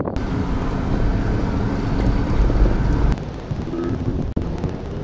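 Wind buffeting the camera's microphone, a heavy rumble over the running noise of the 4x4 truck. The noise drops suddenly and changes about three seconds in.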